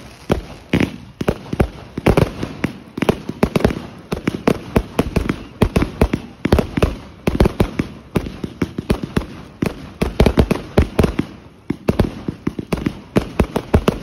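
Fireworks display: a loud, dense barrage of firework bursts, several bangs a second with no let-up.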